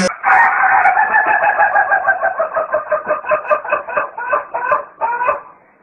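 A rooster crowing one very long crow of about five seconds, its pitch wavering in a rapid pulse through the second half before it stops abruptly.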